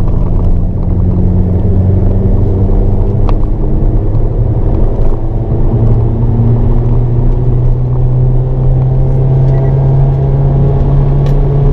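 Hyundai Avante N's 2.0-litre turbocharged four-cylinder engine pulling hard under full throttle, heard from inside the cabin, its note climbing in pitch partway through as it accelerates in fourth gear toward a shift to fifth.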